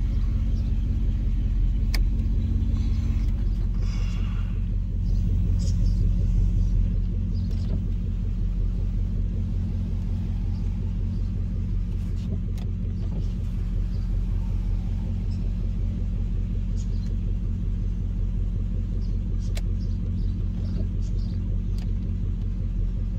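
Ram 1500 pickup engine idling steadily, heard from inside the cab, with a few light clicks.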